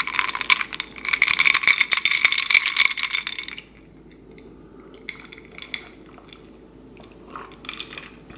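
A glass of water held right up to the microphone makes a dense, loud crackling and clinking that stops suddenly about three and a half seconds in. Quieter scattered sounds follow as it is drunk from.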